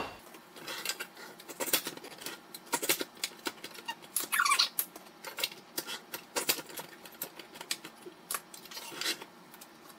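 Manual rail tile cutter scoring tiles: irregular clicks, clinks and scrapes of the cutter and tile, with one longer squeaky scrape about four and a half seconds in. The scoring is pressed hard enough that it seems to cut straight into the tile rather than just scoring it.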